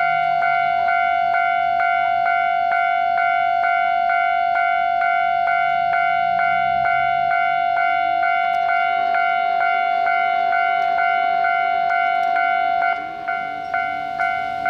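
Japanese railway level-crossing warning bell ringing in a fast, even rhythm of about two and a half strikes a second, each strike a ringing tone with higher overtones, signalling an approaching train. It turns somewhat quieter near the end.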